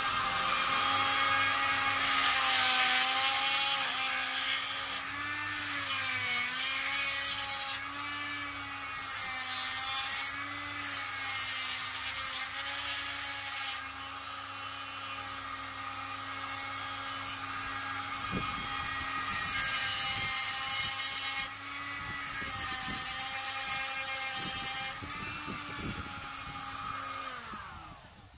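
Dremel-type rotary tool with a flexible-shaft handpiece running at high speed as its bit grinds away the old handle of a kitchen knife. The steady whine wavers in pitch as the bit presses in, with stretches of louder grinding. It winds down and stops near the end.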